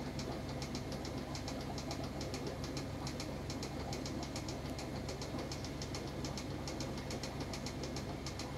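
Aquarium equipment running: a steady low hum with a rapid, uneven run of light ticks, several a second.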